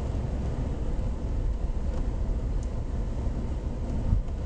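Steady in-cabin road noise from a moving car: a low rumble of engine and tyres on wet pavement. A brief thump comes about four seconds in.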